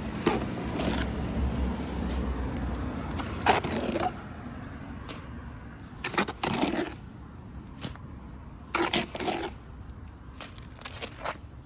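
Short, separate scrapes and knocks of hand tools on stone and concrete, a second or a few seconds apart. A low rumble underneath falls away about four seconds in.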